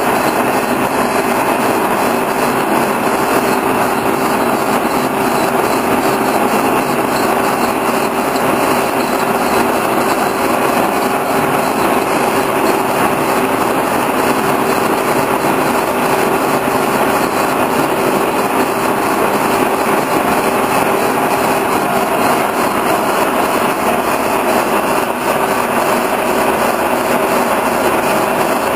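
Horizontal boring mill running steadily, its spindle and faceplate turning a shaft during a turning and facing pass. It makes a steady machine hum with one constant tone that neither rises nor falls.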